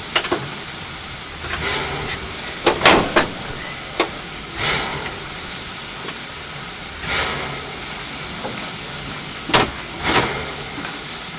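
Steam locomotive 6A, a Victorian Railways NA class 2-6-2T narrow-gauge tank engine, standing in steam with a steady hiss. Short louder swells of hiss and a few sharp metallic knocks come every couple of seconds.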